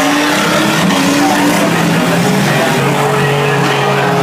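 Music playing loud, mixed with the engines of six-cylinder demolition-derby cars revving on the track; several pitched tones glide up and down, and one note is held steady near the end.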